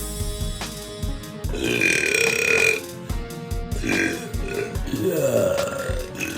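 A girl burping, long drawn-out belches whose pitch bends, over background music with a drum beat.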